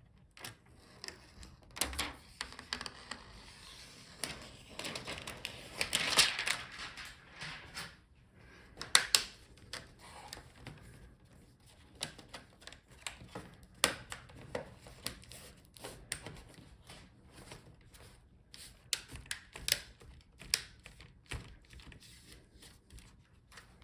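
Sharp plastic clicks and snaps at irregular intervals as a laptop's plastic front bezel is pressed and clipped onto the screen lid, with a longer rustle about five to seven seconds in.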